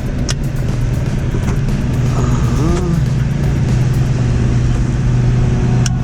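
Steady low hum of an electric fan running, with a few sharp clicks of tools on metal near the start and the end.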